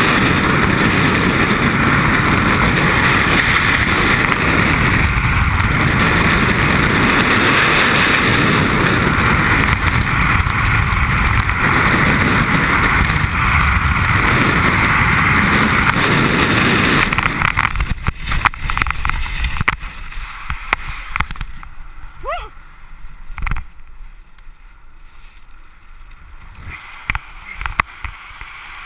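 Freefall airflow blasting over a helmet-mounted camera: a loud, steady rush of wind. About 17 seconds in it drops away sharply as the parachute opens. After that it is much quieter, with scattered flapping and clicks under the canopy.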